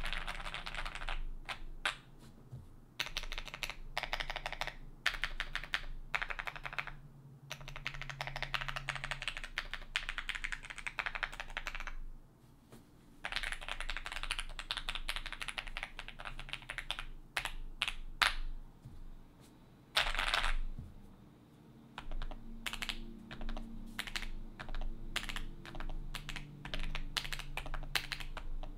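Typing on a Zoom65 mechanical keyboard with stock FLCMMK Ice Mint linear switches in a foam-packed polycarbonate-plate build with GMK keycaps: runs of fast keystrokes with a deadened, "marbly" clack, broken by short pauses. Near the end the strokes slow to single, spaced key presses.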